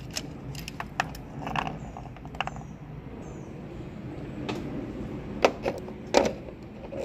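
Scattered metallic clicks and clinks of a socket extension and old spark plugs being handled as the plugs are drawn out of the engine and set down, over a steady low hum. The sharpest knocks come about five and a half and six seconds in.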